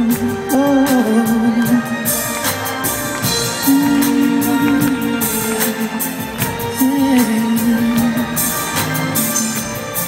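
Live band playing a song's introduction in a concert hall: drum kit and hand-drum percussion with cymbal strikes under a wavering melodic line.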